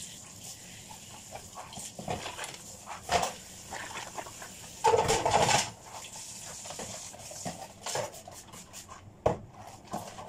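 Dishes and cutlery clinking and clattering as they are washed by hand in a kitchen sink, with one louder, longer clatter about five seconds in.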